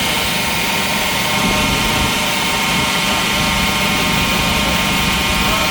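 Steady, loud roar of running shop machinery with a faint whining hum, unbroken and with no hammer blows.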